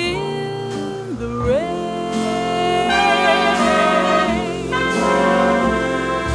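Jazz orchestra playing an instrumental passage, saxophones and brass holding chords, with one line scooping upward in pitch about a second and a half in.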